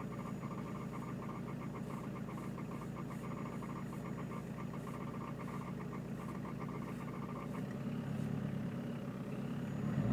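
Peugeot 306 turbo diesel engine idling with a strange fast, pulsing chatter over its steady running note. The engine note grows louder near the end.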